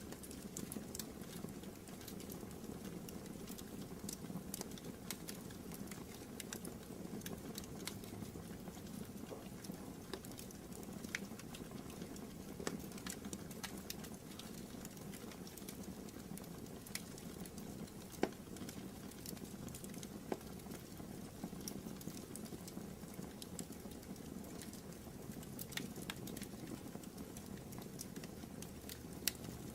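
Wood fire burning in a fireplace: a steady low rush of flames with irregular crackles and pops from the burning wood, a few sharper snaps standing out.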